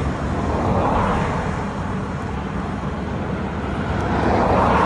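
Road traffic passing a cyclist: tyre and engine noise swells and fades about a second in and again near the end, over a steady low rumble.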